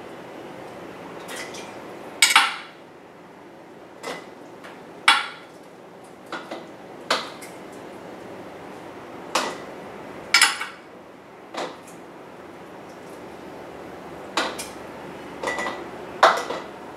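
Metal kitchen tongs clinking against a glass baking dish and glass canning jars as chunks of beef are lifted and dropped in: about a dozen sharp clinks at irregular intervals, a few with a brief ring.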